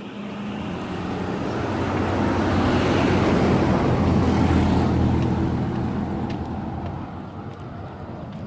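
A motor vehicle driving past, its engine and road noise growing louder to a peak about four seconds in and then fading away.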